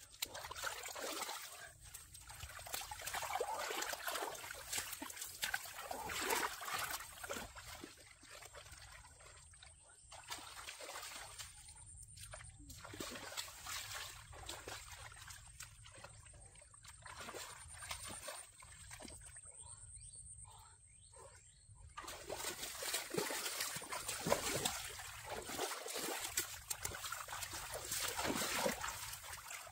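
Shallow muddy water splashing and trickling in irregular bursts as a person wades and gropes by hand in a pond, louder at the start and again in the last third.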